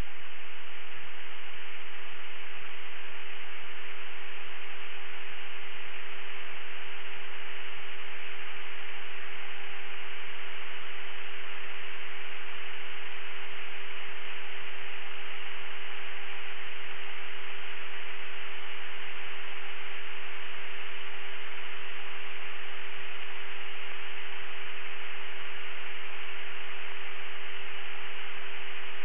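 Steady radio static from an open channel between transmissions: an even hiss with a constant low hum tone underneath, unchanging throughout.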